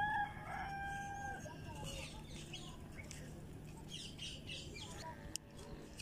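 A rooster crows once at the start, one long held note lasting about a second and a half, then faint chirps. Near the end there is a single knock of a small hand hoe digging in dry soil.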